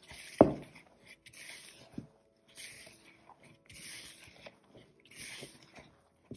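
A hand squeezing and rubbing crumbly cookie dough against a plastic bowl: a rustling squish that comes and goes about once a second. There is one sharp thump just under half a second in.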